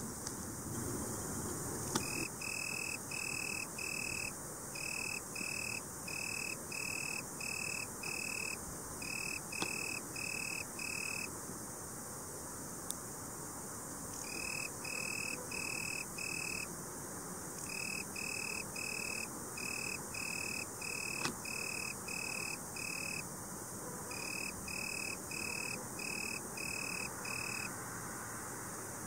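Male Italian tree cricket (Oecanthus pellucens) singing with its wings raised: a clear, musical note repeated about twice a second in runs of several seconds, broken by short pauses. A few faint clicks sound in the background.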